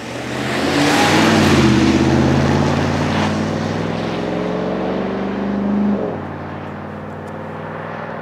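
GMC Sierra Denali's 6.2-litre V8 pulling away under acceleration, its engine note climbing steadily. About six seconds in the note drops suddenly, and the engine carries on quieter as the truck draws away.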